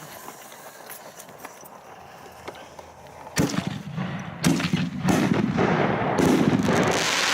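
A firework shell going off in a mortar tube: a sharp bang about three and a half seconds in, then a few seconds of loud, rough crackling burn with repeated pops.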